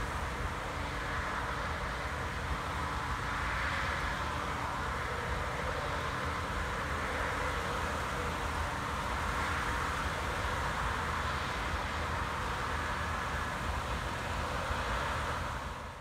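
Claas Trion 650 combine harvester working a cereal crop: a steady drone of engine and threshing machinery with a rushing hiss that swells every few seconds.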